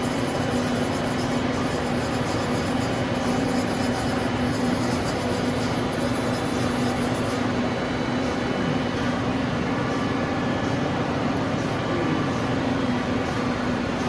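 Steady machinery running: an even hum with one constant tone over a broad hiss.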